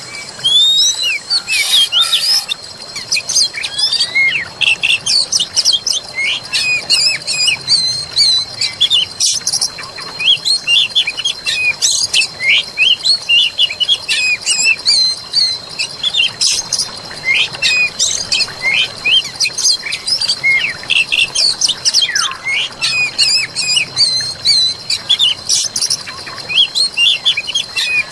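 Forest birdsong: many small birds chirping in a dense, quick chorus of short rising and falling notes, several a second, over a steady high-pitched tone.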